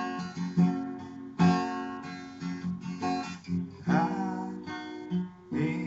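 Acoustic guitar strumming chords between sung lines of a song.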